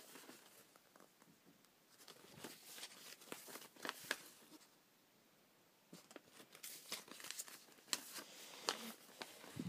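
Paper collage sheets being shuffled and flipped through by hand, with faint rustling and crinkling in two spells and a short quiet pause in the middle.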